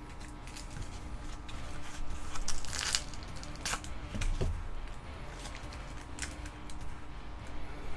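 Light rustling and crinkling of trading-card packaging as a promo card is handled and pulled out, in short scattered scrapes, the loudest about three seconds in.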